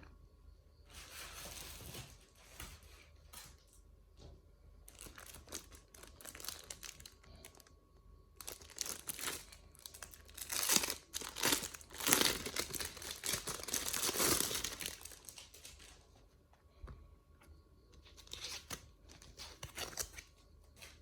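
Packaging crinkling and tearing in several irregular bursts, loudest and most continuous in the middle stretch.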